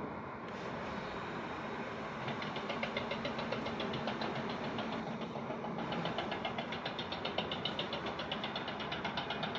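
Hydraulic breaker on a Cat 320 excavator hammering in rapid, even blows over the excavator's running diesel engine. The hammering starts about two seconds in and stops briefly around the middle before picking up again.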